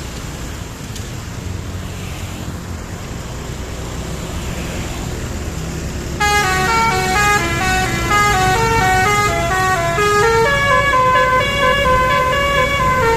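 Low vehicle engine rumble, then about six seconds in a bus's Basuri telolet multi-tone horn starts playing a loud stepping melody, several horn notes sounding together.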